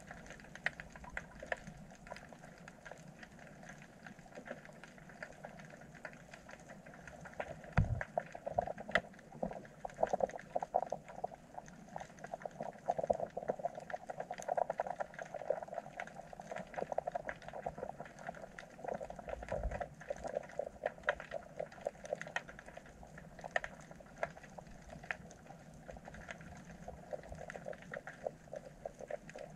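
Underwater sound picked up by a submerged camera: a dense, steady crackle of small clicks and pops with a bubbling quality, and two dull low thumps partway through.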